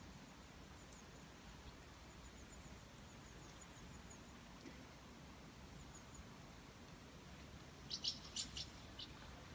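Near silence with faint bird chirping in strings of quick high notes; about a second before the end comes a brief cluster of short, sharp sounds.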